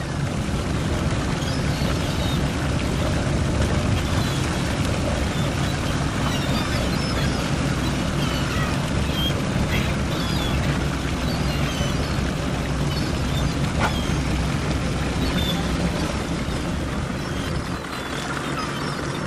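Fishing boat's engine running steadily, with water washing and many short seagull calls overhead.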